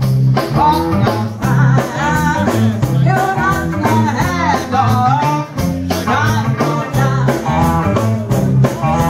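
A live rock'n'roll band plays: a woman sings lead into a microphone over drums with a steady beat, bass and electric guitar.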